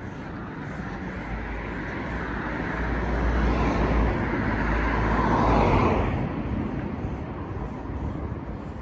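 Road traffic: a car approaches, grows louder and passes close by about six seconds in, its sound dropping in pitch as it goes, then fades back into the general traffic noise.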